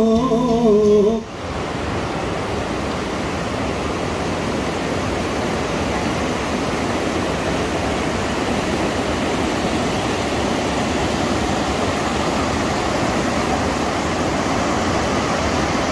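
Whitewater rapids of the Parvati River rushing steadily over rocks. A song with singing cuts off about a second in, leaving only the water.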